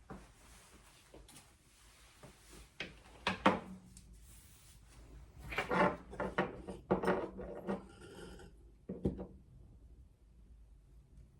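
Handling noise from a bird cage wind chime and its cord being worked by hand: scattered clicks, taps and rubbing, busiest in the middle, with a brief ringing rattle and one last tap near the end.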